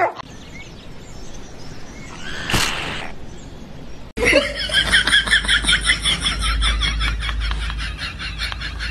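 Rapid, high-pitched giggling, about six bursts a second, starting suddenly about four seconds in after a quieter stretch.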